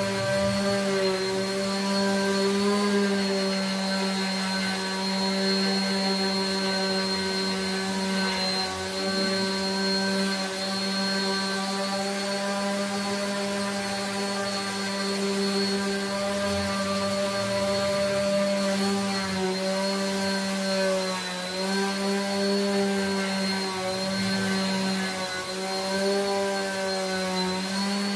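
Electric orbital sander running steadily as it sands the willow face of a cricket bat blade, its motor pitch dipping briefly a few times as it is pressed into the wood.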